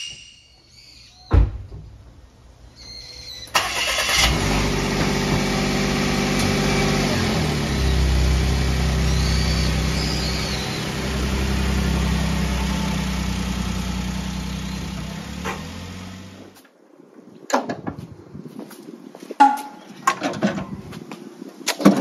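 A kei truck's small engine starts and runs while the truck drives out of a garage, then switches off suddenly about three-quarters of the way through. A single thump comes shortly before the start, and a few knocks and clicks come after the engine stops.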